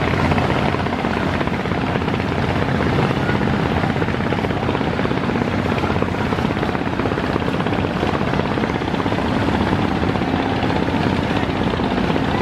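A boat's diesel engine running steadily, a fast even chugging under a continuous rush of noise.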